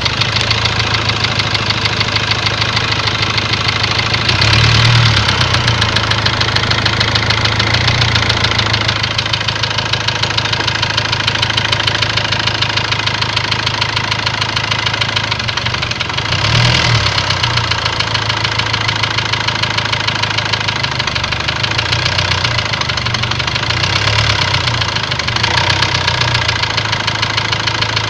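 Ford Transit engine running at idle with a fast, steady knock from inside the engine, briefly revved twice.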